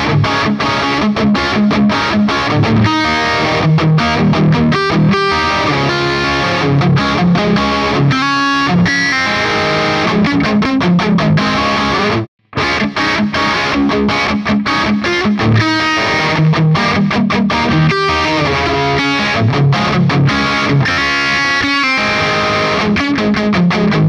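Charvel Pro-Mod San Dimas Style 1 electric guitar played with a distorted tone, a riff mixing single notes and chords. It stops for a moment about 12 seconds in, then the playing starts again.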